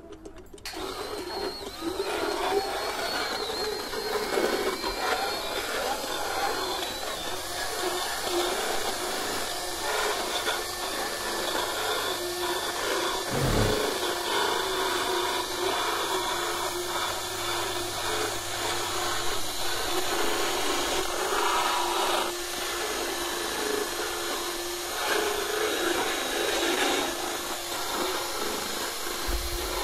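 Motorized rotary dental float filing down a horse's uneven teeth: a steady electric whir with a grinding rasp, starting about half a second in.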